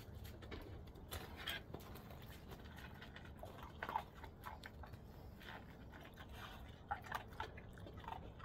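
Dogs eating: irregular crunching and chewing, with a few sharper crunches about four seconds in and again near the end.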